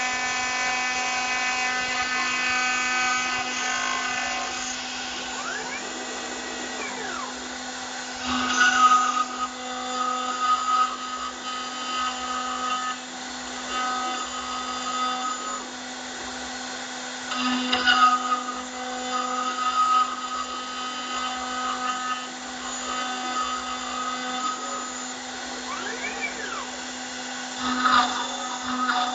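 CNC engraving machine cutting text into aluminium: the spindle runs with a steady whine and hum while the bit cuts. Twice a whine rises and falls as the axes move, and the cutting turns louder and harsher three times, about every nine to ten seconds.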